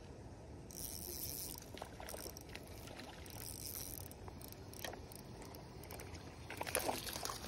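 Small spinning reel being cranked during a lure retrieve: bursts of soft hiss and scattered clicks, with a cluster of louder clicks near the end, over a steady low background noise.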